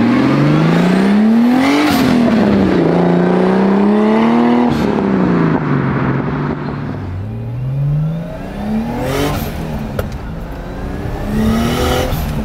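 Turbocharged BMW 2002 with a swapped-in E30 engine accelerating hard, the engine note climbing steadily, falling back sharply at each upshift, then climbing again, several times.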